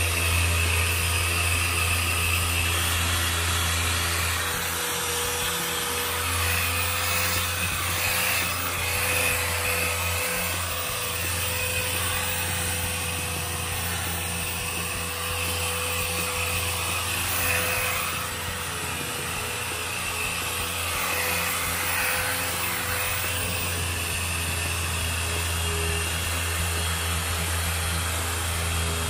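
Electric motor of a detailing machine running steadily, with a constant low hum and a higher whine.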